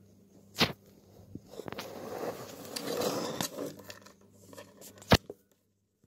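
Handling noise at a budgie nest box: two sharp knocks about four and a half seconds apart, with a few seconds of scraping and rustling between them.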